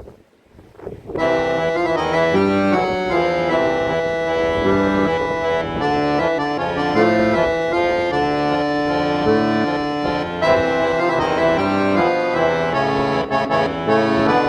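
Background music with sustained chords and a melody starting about a second in, after a moment of wind noise on the microphone.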